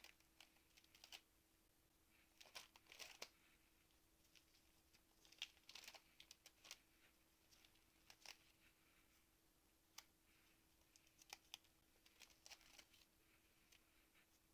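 Faint crinkling and rustling of plastic binder pocket pages being turned by hand, in scattered short bursts with a few sharp clicks.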